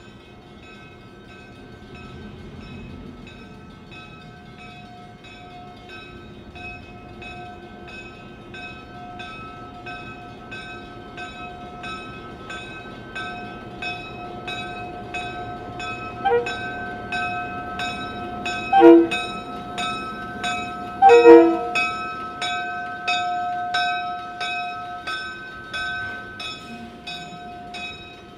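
The bell of a CF7 diesel locomotive ringing steadily as the locomotive rolls slowly past on street trackage, growing louder as it draws near. Three brief louder notes stand out about two-thirds of the way through.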